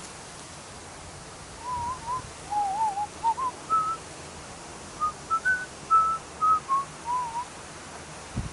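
A person whistling a meandering little tune: a string of short pure notes that waver and step up and down in pitch, starting about one and a half seconds in and stopping near the end, over a steady background hiss.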